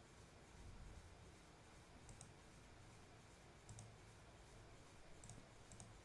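A few faint computer mouse clicks, some in pairs, against near-silent room tone.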